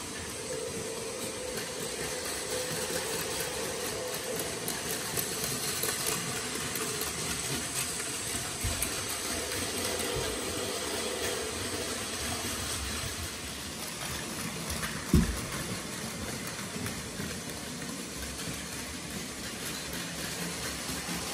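Battery-powered Plarail Advance toy trains running on plastic track: a steady whir of their small electric motors and the rattle of wheels over the rails, with a faint motor whine that comes and goes. A single thump about fifteen seconds in.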